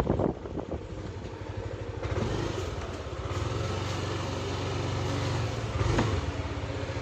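Yamaha NMAX scooter's single-cylinder engine running with a steady low drone that grows louder about two seconds in, and one sharp click about six seconds in. The scooter growls and pulls weakly under throttle, which the mechanic suspects comes from its CVT.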